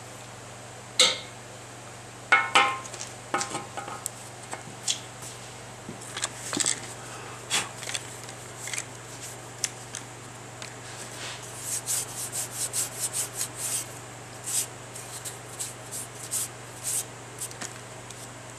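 Permanent magnets of a magnetic crack detector clacking and scraping against a Ford Model A cast-iron engine block as they are moved and set in a new spot, with sharp metallic knocks in the first few seconds and a run of quick light ticks about two-thirds of the way in.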